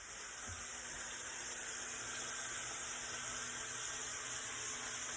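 Bacon and sausage frying in a pan: a steady sizzling hiss.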